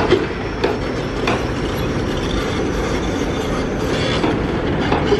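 Heavy earthmoving machinery at work: diesel engines running in a dense, steady din, with a few sharp metallic knocks in the first second or so.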